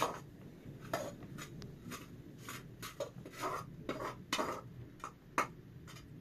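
Metal spoon scraping and clinking against a metal cooking pot as cooked rice is scooped out onto a plate: a run of short, irregular clinks and scrapes.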